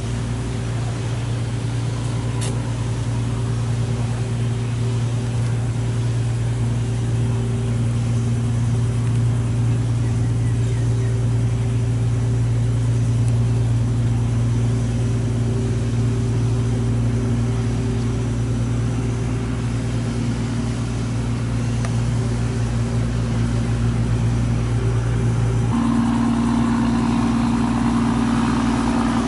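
A motor running steadily with a low, even hum; its tone changes abruptly near the end.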